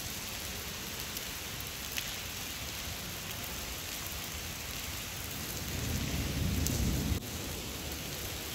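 Steady rain falling, with a low rumble of thunder that swells past the middle and cuts off suddenly.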